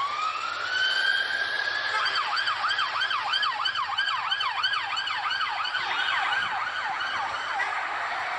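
Siren of an unmarked BMW police car on an emergency run: a rising wail over the first two seconds, then a fast yelp sweeping up and down about three times a second, over traffic noise.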